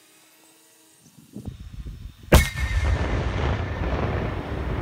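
Black-powder anvil shoot: the charge between two anvils goes off in one loud bang a little over two seconds in, launching the top anvil. A brief high ringing tone follows the bang, and a long low rumbling echo trails after it, with a low rumble also in the second before the blast.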